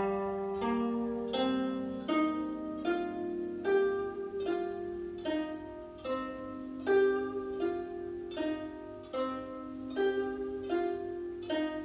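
Instrumental passage of a Chinese song: a plucked string instrument, zither-like, playing a slow melody of single notes about three-quarters of a second apart, each note ringing on after it is plucked.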